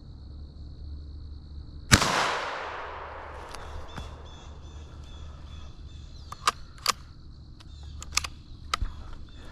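.17-caliber rifle fired once, a sharp crack about two seconds in, with its echo dying away over a second or so. A steady insect trill runs underneath, and several light clicks come later.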